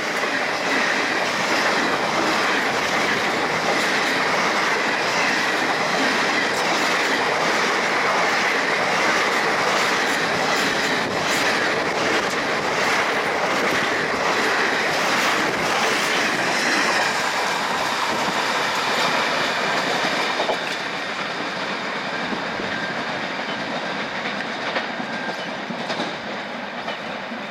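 Passenger coaches of an express train rushing past at about 110 km/h, wheels clattering over rail joints in a steady clickety-clack. The noise drops suddenly about twenty seconds in and goes on more softly.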